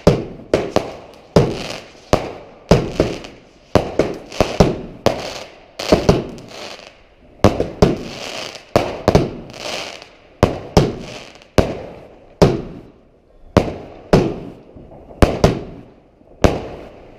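Fireworks going off in rapid succession: a quick string of sharp bangs, one or two a second, each followed by a short crackling hiss.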